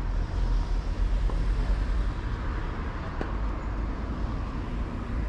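Steady low rumble with a few sharp racket-on-ball hits of a tennis rally, the clearest about three seconds in.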